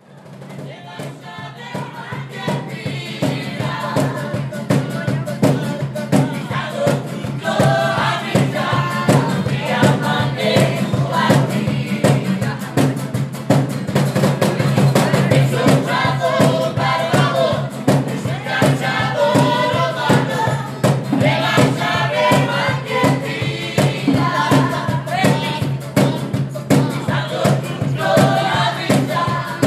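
A street band playing several strummed acoustic guitars over a cajón beat, with voices singing together. The music fades in over the first few seconds.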